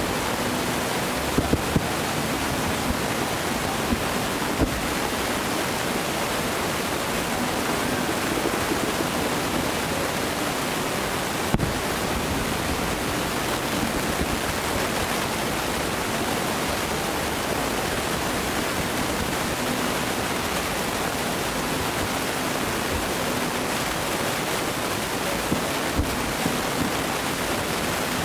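Steady, even hiss of outdoor noise, with a few short sharp pops of distant fireworks bursts, some in quick clusters.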